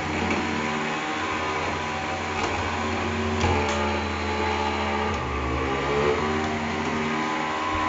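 Escalera Stair Cat powered stair climber's electric drive running under load as it moves a cabinet on stairs: a steady mechanical drone that shifts in pitch a few times, with a few sharp clicks about halfway through.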